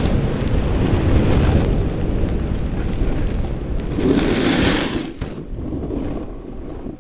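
Wind buffeting the microphone of a snowboarder's action camera, mixed with the board's edges scraping over snow. A louder hissing scrape comes about four seconds in, during a leaning turn, and the noise dies down over the last two seconds.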